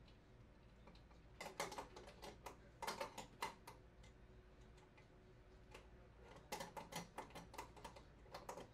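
Light metallic clicking and tapping as a metal cover plate and its screws are fitted onto a steel electrical junction box. The clicks come in two bursts.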